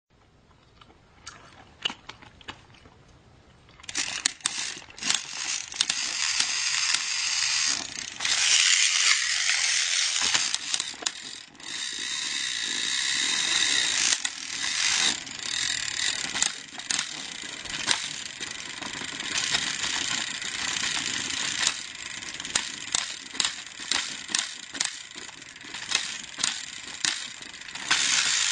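Toy trains running and clattering, with rapid ratcheting clicks from their gears and wheels as two trains pull against each other in a tug of war. A few faint clicks at first, then the clatter starts about four seconds in and keeps going.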